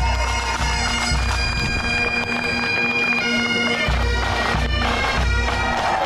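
Pipe band playing: bagpipes sounding a tune over their steady drone, with a bass drum beating underneath. The music stops just before the end.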